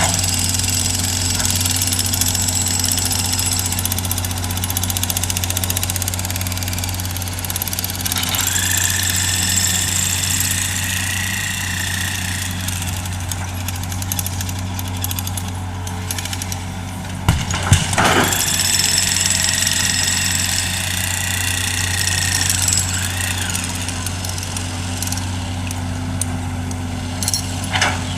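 Hitachi hydraulic excavator working, its diesel engine running steadily. A high whine comes in twice for a few seconds, and there are a few knocks about two-thirds of the way through.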